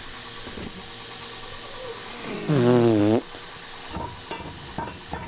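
A man's short grunt of effort lasting under a second, about halfway through, as an anvil is lifted and set into its stand. A steady hiss runs underneath, and a few light knocks follow near the end.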